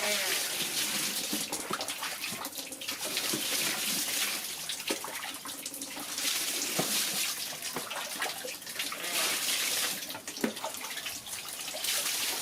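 Tap water running and splashing as a monkey is washed in a bath, with a few small knocks.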